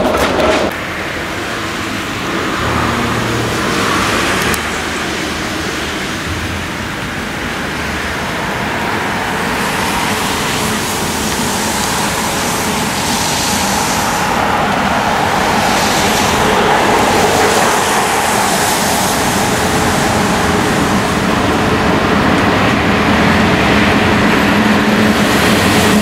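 Class 181 electric freight locomotive hauling a train of tank wagons, with wheels rumbling on the rails. The sound grows gradually louder as the train rolls past, and some steady running tones appear near the end.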